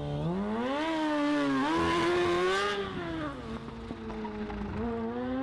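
Sport motorcycle engine accelerating away, its note rising over about three seconds with a brief dip about one and a half seconds in. It then gives way to a lower, steadier engine note that climbs again near the end.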